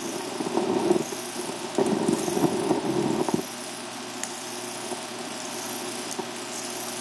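Crackling, popping film noise from a hand-made 16mm sound film running through the projector, with many small clicks. About three and a half seconds in it drops away as the clear film gives way to black film, leaving a steady low hum.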